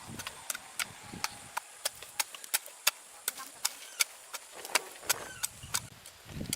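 A steady series of sharp knocks, about three a second, over a faint hiss, with a low rumble coming up near the end.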